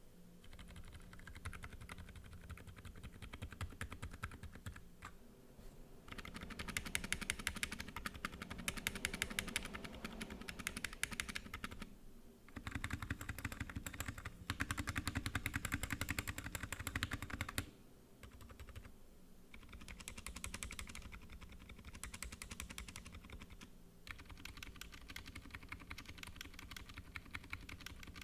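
Typing on a NovelKeys NK65 Entry Edition 65% mechanical keyboard fitted with Gazzew Boba U4 silent tactile switches and Cherry-profile dye-sub keycaps: a continuous, quiet patter of keystrokes. It gets louder and busier through the middle, with short breaks twice.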